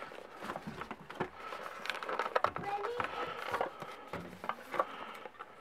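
Handling noise as items are taken out of a cardboard box: rustling with scattered small clicks and knocks as a small metal puzzle tin is lifted out, with faint quiet voices underneath.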